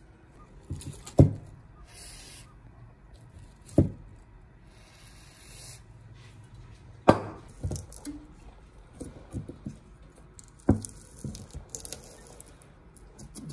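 Workbench handling noises: four sharp knocks of hard objects set down or struck, roughly every three seconds, with smaller clinks between, and two short hisses of spray about two and five seconds in.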